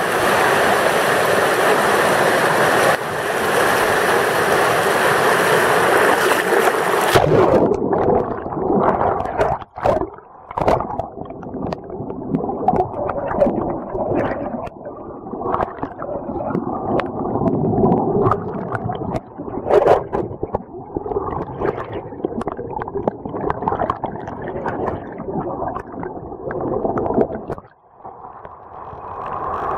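Whitewater rapids rushing, heard at the water's surface. About seven seconds in the sound turns suddenly muffled and low: churning water and bubbles gurgling heard from under the surface.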